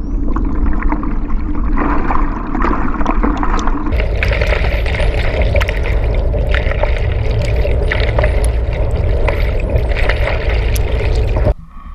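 Underwater sound beneath a moving kayak: water rushing and bubbling past the hull-mounted camera, with bottlenose dolphin whistles (short rising-and-falling arcs) and trains of echolocation clicks over it. The whistles come more often from about four seconds in, and the sound cuts off shortly before the end.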